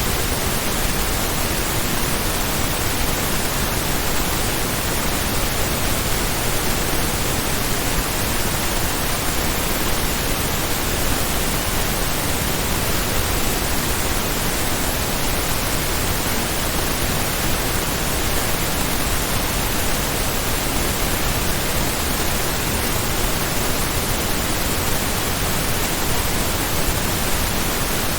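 Steady pink noise test signal, an even hiss across the whole range without change, mastered to about −14 LUFS with a 1 dB peak ceiling.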